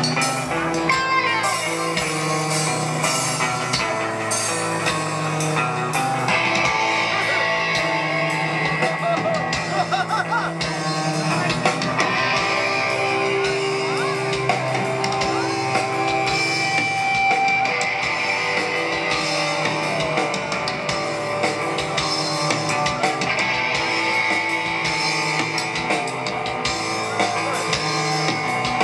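Rock band playing live: electric guitars, bass and a drum kit, loud and continuous.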